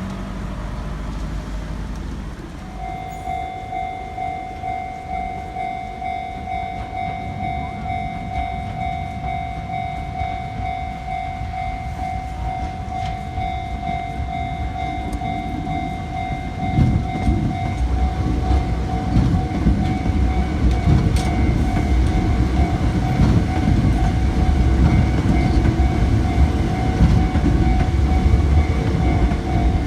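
Japanese railroad crossing warning bell starting about three seconds in and ringing over and over with a steady pulsing tone. From just past halfway a train runs through the crossing, loud and low, while the bell keeps ringing.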